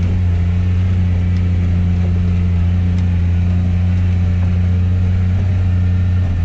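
Polaris Ranger side-by-side's engine running at steady revs, a deep even drone; right at the end its pitch drops as the revs fall.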